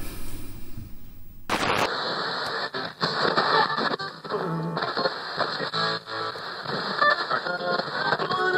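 Outro music that starts abruptly about two seconds in, after a brief quiet stretch, and then plays steadily.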